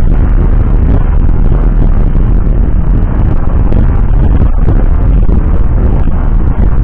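Loud, steady road rumble of a car driving on a wet road, heaviest in the deep low end.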